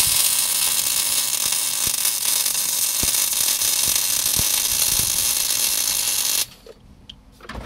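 Electric arc welder's arc sizzling steadily as it runs a weld bead along a cracked tractor seat bracket, then cutting off suddenly about six and a half seconds in.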